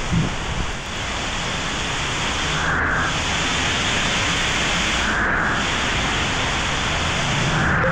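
Heavy downpour of rain hitting the road and pavement, a steady loud hiss, with a car's tyres swishing through the water on the road.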